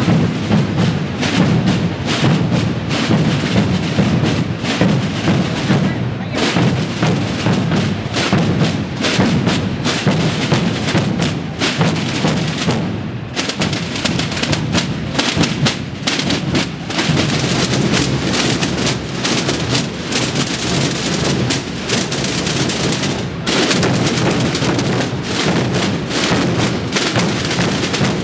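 Massed Holy Week drum corps of bass drums (bombos) and rope-tensioned snare drums (tambores) beating together in a dense, continuous pattern of strikes, with a few brief dips.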